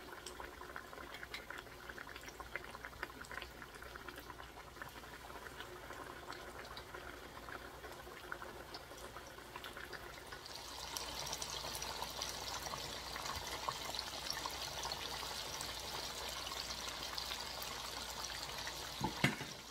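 Oil heating in a pan with faint crackling, then about halfway through a steady sizzle starts as masala-coated chicken pieces go into the hot oil to fry. A couple of knocks come near the end.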